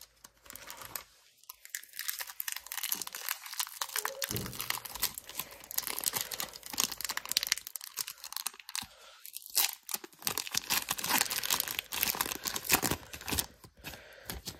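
Foil wrapper of an Upper Deck hockey card pack being torn open and crinkled by hand: a dense run of crackling and ripping with a few short pauses.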